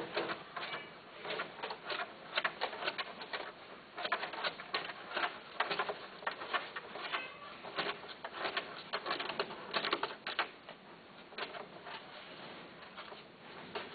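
A small furry animal in a wire-fronted pet cage making irregular clicking and rustling noises, several clicks a second, easing off briefly near the end.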